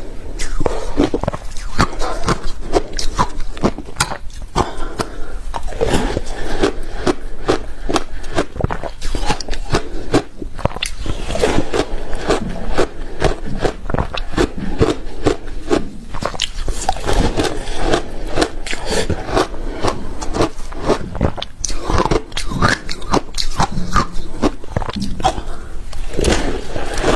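Ice with passion fruit being bitten and chewed in big bites: dense, continuous crunching and cracking with no pause.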